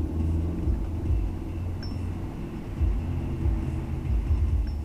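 Honda S2000's engine and tyres heard from inside the cabin while driving: a steady low rumble, with a couple of faint high ticks about two seconds in and near the end.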